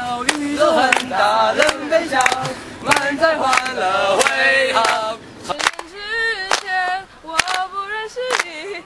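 A group of teenage boys and girls singing together, with hand claps along with the song.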